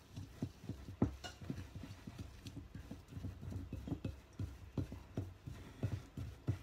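Hands mixing and pressing sticky ANZAC biscuit dough in a glass bowl, giving irregular soft knocks, several a second, as fingers and dough hit the bowl.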